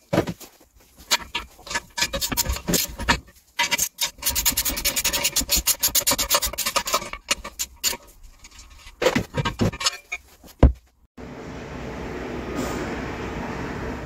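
Metal clicking, scraping and rasping as a car engine block is unbolted and handled on an engine stand's mounting plate, with a fast even run of clicks in the middle. After a sudden cut near the end there is a steady, even background noise.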